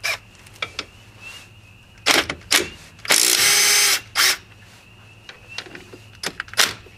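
A cordless power tool on the front brake caliper bolts, being loosened. It gives a few short blips, then runs steadily for about a second, then one more short blip, with a few small clicks of tool handling before it.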